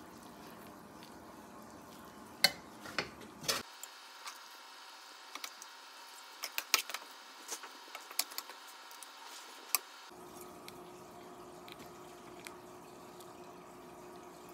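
Scattered sharp clicks and taps of serving utensils against a bowl as glass noodles and sautéed bottle gourd stew are dished up, over a low background; a faint steady hum comes in near the end.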